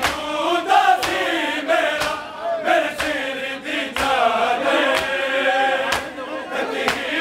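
Men chanting a Punjabi noha (Shia mourning lament) together, with sharp chest-beating (matam) strikes keeping time roughly once a second.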